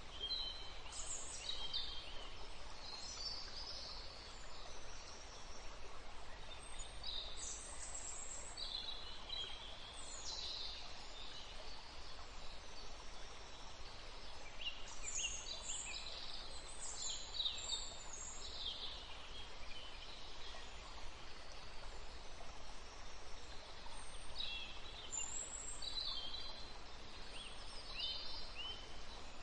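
Small birds chirping: clusters of short, high calls every few seconds over a steady background hiss.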